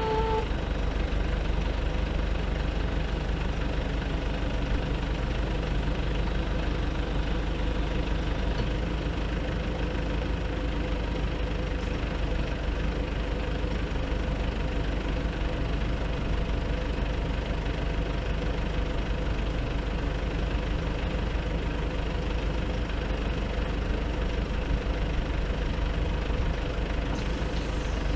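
Truck engine of a Nissan Cabstar-mounted Multitel MT222AZ boom lift running steadily, driving the lift's hydraulics while the boom is lowered.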